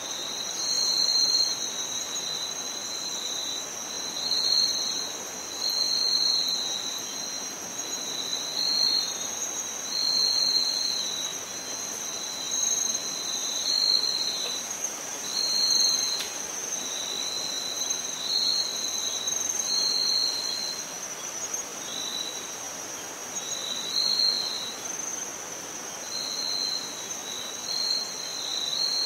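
Insect chorus: a steady high-pitched trill, with a second, slightly lower trill that swells and fades every second or two.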